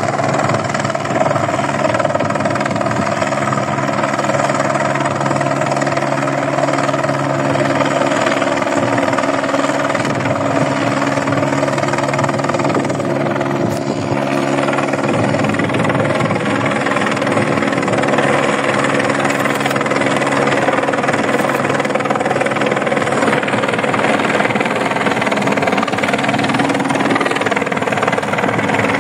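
Helicopter engine and rotor running steadily, with a fast, even chopping pulse.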